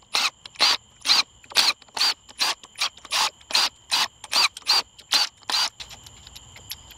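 Milwaukee M12 Fuel cordless impact hammering camshaft bearing-cap bolts loose on a Pentastar 3.6L aluminium cylinder head, in a rapid series of short trigger bursts, two or three a second, that stop about six seconds in. Faint clicks of parts being handled follow.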